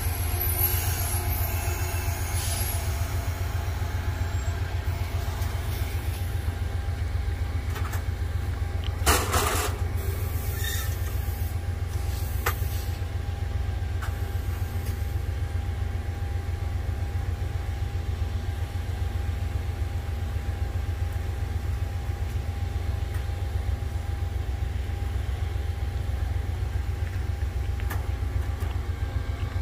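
Amtrak passenger train standing alongside the track: a steady low rumble with a faint steady whine above it. A short, loud burst of noise about nine seconds in.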